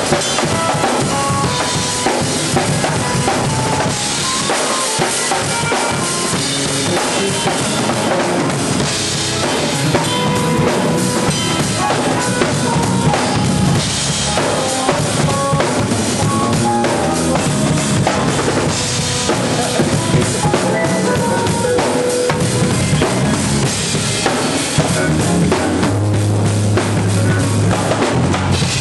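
Drummers playing drum kits in a shed session: continuous dense playing of snare, bass drum and cymbals.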